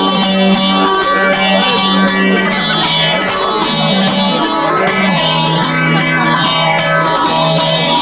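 Bağlama (saz) playing an instrumental semah tune for the dancers, plucked notes over a steady low drone note that shifts down slightly about halfway through.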